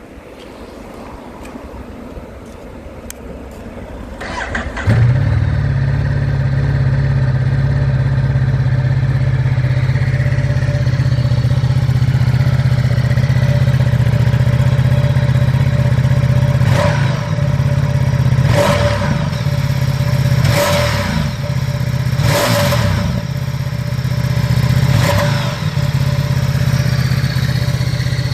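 Ducati Diavel Lamborghini's V-twin engine on its stock exhaust starting about five seconds in, then idling steadily. It is given several short blips of the throttle in the second half, each rising and falling quickly.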